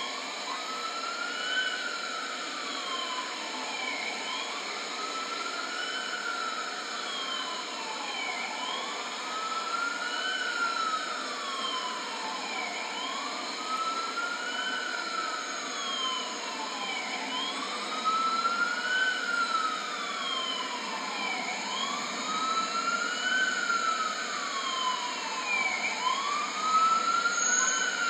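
FDNY ambulance siren sounding in wail mode, its pitch sweeping up and down about once every four seconds, over steady street traffic noise. It grows somewhat louder in the second half.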